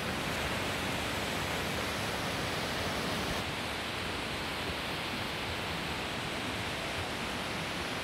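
Steady rush of falling water from Nachi Falls, a tall single-drop waterfall plunging onto rock, heard as an even, unbroken hiss.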